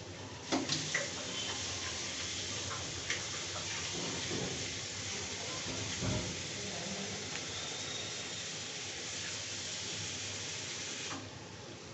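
Sliced onions sizzling in a steel kadhai, a steady frying hiss with a few sharp clicks in the first few seconds. The hiss cuts off suddenly shortly before the end.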